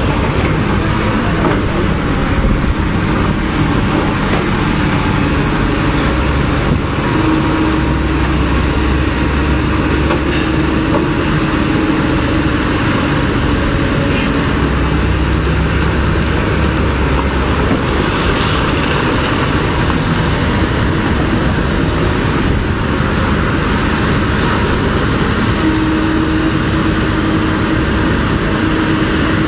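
Diesel engines of several hydraulic excavators running hard together, a steady loud roar whose pitch rises and falls as the machines work.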